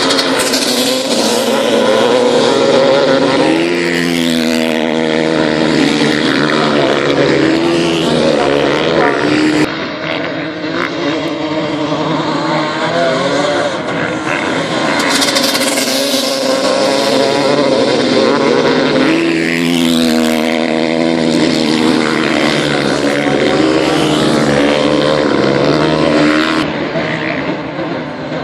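Supermoto racing motorcycles at high revs, their engines rising and falling through the gears as the bikes race past. The loudest passes come about four seconds in and again near twenty seconds in, each ending in a falling sweep in pitch.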